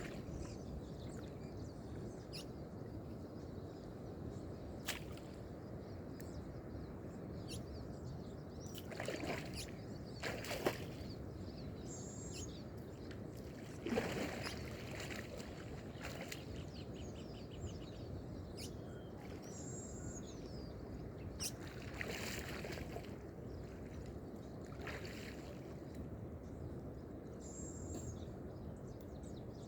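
Lake water lapping, a steady low wash with several louder sloshes and splashes, and faint bird chirps a few times.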